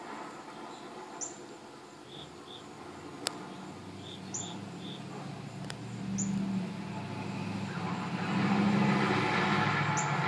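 A low, humming rumble from far off that swells about six seconds in and grows louder near the end, with short bird chirps over it.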